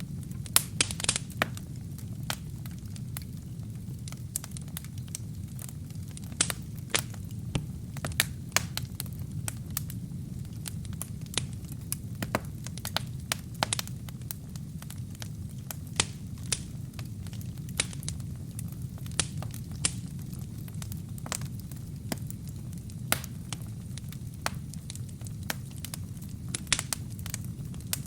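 Wood fire burning with burning kindling: a steady low rumble of the flames under irregular sharp crackles and pops, a quick run of them about a second in.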